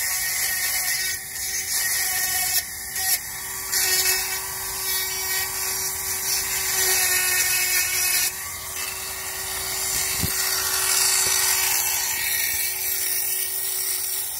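Handheld electric chainsaw sharpener running with a steady high whine as its grinding stone files the cutters of a chainsaw chain. The grinding rises and drops several times, dips sharply about eight seconds in and fades near the end.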